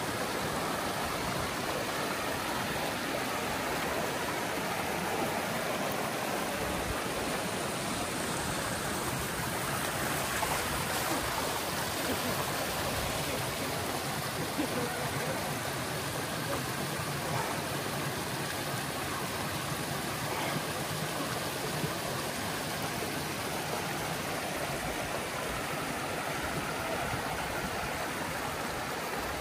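River water flowing steadily over rocks.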